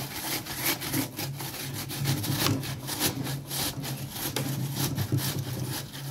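Half a tomato rubbed up and down a stainless steel box grater, making quick, evenly repeated rasping strokes of soft flesh against the metal teeth.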